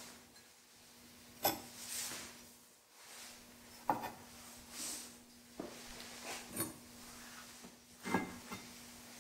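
Glaze-fired ceramic cups being lifted out of an electric kiln, giving about five sharp clinks of pottery against the kiln shelf and other cups, with soft rubbing and handling sounds between them. A faint steady low hum lies under it all.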